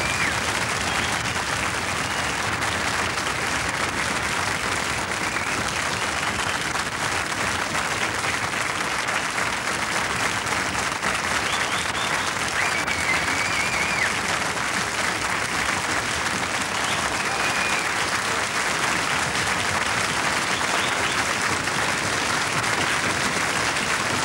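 Large studio audience applauding: dense, continuous clapping at a steady level.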